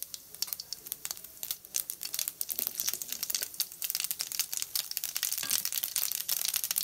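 Mustard seeds and urad dal frying in hot oil in a kadai, the mustard seeds spluttering: quick, dense crackling pops that grow thicker and louder through the second half.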